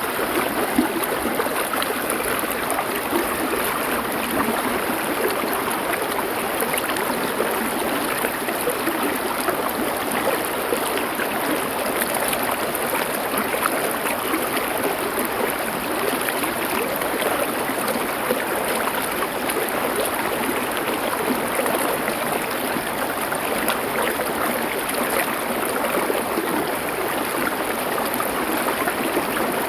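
A stream of water flowing over stones: a steady, even rushing and trickling that does not change.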